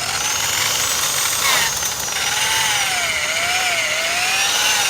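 Variable-speed 7-inch buffer's electric motor whining, its pitch rising and falling several times as the trigger is squeezed and eased off.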